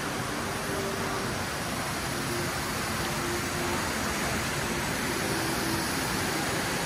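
Fountain water splashing: a steady, even rush of noise.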